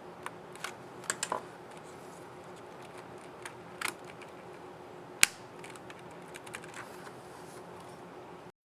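Scattered plastic clicks of a Lenovo ThinkPad Yoga 260 laptop keycap being pressed and snapped onto its scissor mechanism, with a quick cluster of clicks about a second in and one sharp, louder snap about five seconds in.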